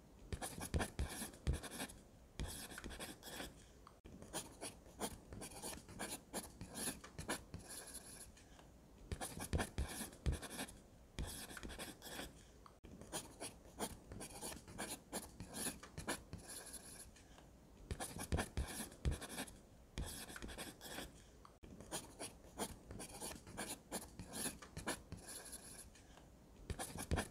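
Pencil scratching on sketchbook paper: runs of short shading and line strokes broken by brief pauses, with a signature written near the end.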